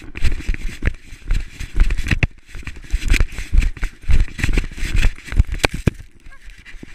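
Hunting dog running over snow with a camera strapped to its body: a fast, uneven run of thumps and crunches from its footfalls, with the camera jostling on its harness.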